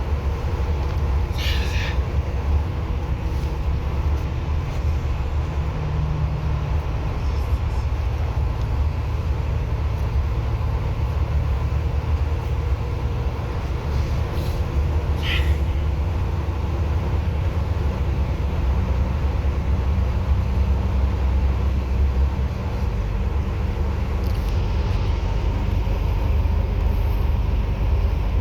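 Bus in motion, heard from inside the cabin: a steady low rumble of engine and road noise. Two brief high-pitched squeaks come through, one about a second and a half in and another about fifteen seconds in.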